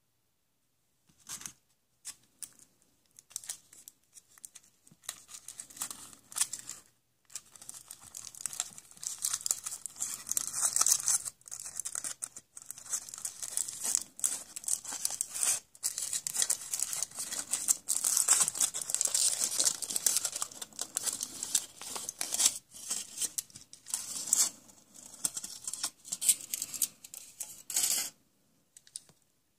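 Surprise egg's foil wrapper being torn and crinkled in dense, scratchy bursts. It starts about a second in, pauses briefly about seven seconds in, and stops just before the end.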